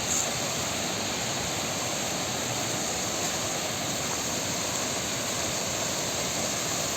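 Steady rushing of water from a small waterfall on a river.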